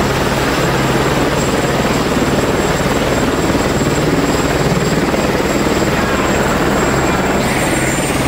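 Helicopter running close by: a loud, steady engine drone with fast, even rotor chop.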